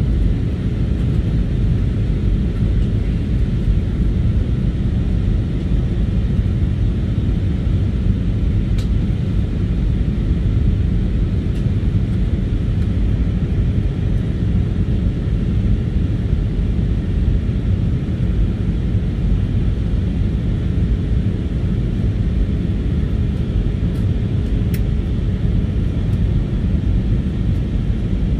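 Jet airliner cabin noise heard from a window seat on descent: a steady, deep drone of engines and rushing air with a faint steady hum on top.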